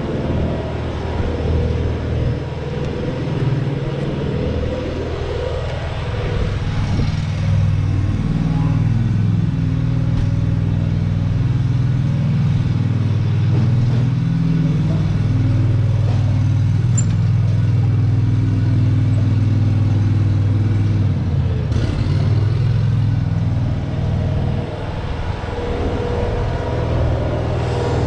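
Kubota SVL75-3 compact track loader's diesel engine running steadily, its pitch rising about a quarter of the way in and dropping back a few seconds before the end.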